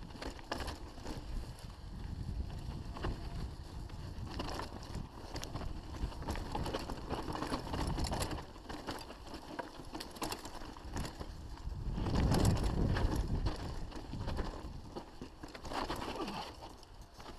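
Mountain bike riding down a rough dirt singletrack: a continuous deep rumble from the tyres and wind on the microphone, with frequent rattles and knocks as the bike goes over stones. It is loudest about twelve seconds in.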